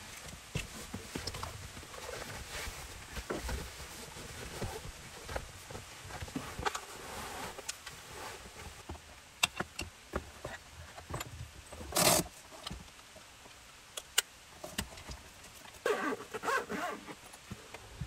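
Hands handling small camping gear and cables: scattered rustles, clicks and light knocks. A short, louder noise comes about twelve seconds in.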